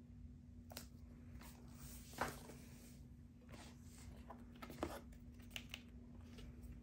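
Quiet handling of a laptop's cardboard box and paper packaging: soft rustles and light taps of cardboard and paper, with a slightly louder scrape about two seconds in and a sharp tap near five seconds.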